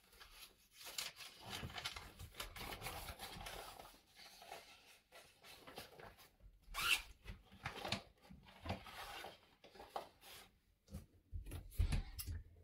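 Circle cutter's blade scraping through thin paper as it is turned, in short uneven strokes, with one sharper scrape about seven seconds in.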